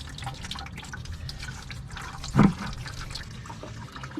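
Engine coolant draining from a radiator's disconnected lower hose into a 5-gallon bucket, pattering and splashing unevenly. One louder dull knock comes about two and a half seconds in.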